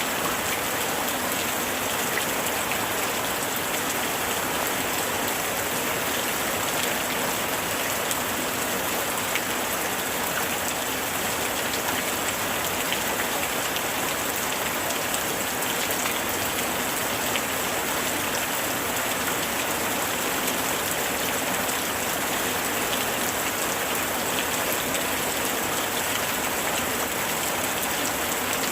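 Heavy rain falling steadily: an even hiss with scattered ticks of single drops.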